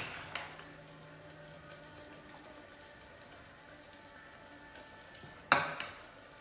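Ladle scooping thick potato curry out of a steel pressure cooker: light clinks at the start, soft liquid sounds, and one sharp clink of the ladle against the pot about five and a half seconds in.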